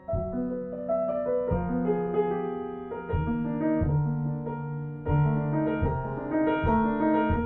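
Solo piano playing a slow jazz standard, with chords struck about once a second and left to ring.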